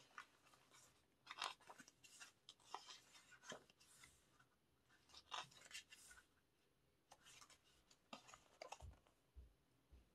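Faint, irregular rustling and soft handling sounds of a paper photobook's pages being turned, with a couple of low soft bumps near the end.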